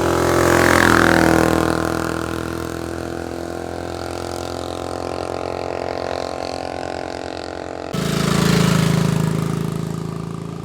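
A vehicle engine running, swelling louder in the first two seconds and then holding a steady run. About eight seconds in it cuts abruptly to another engine that rises briefly and fades away.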